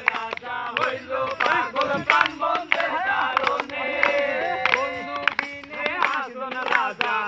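A group of young men singing together unaccompanied, with hand claps keeping time.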